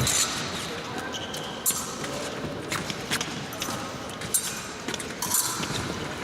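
Épée fencing bout in progress: fencers' feet stamping and squeaking on the piste and blades clicking together, many short sharp knocks and a few brief squeaks, over the reverberant murmur of a large hall.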